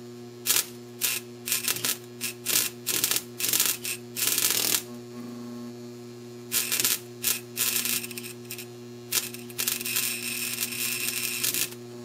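Deshunted microwave oven transformer humming while its low-current winding sparks against a steel screwdriver tip, crackling in repeated short bursts with a longer run of sparking near the end. The sparks are engraving the screwdriver tip, like welding.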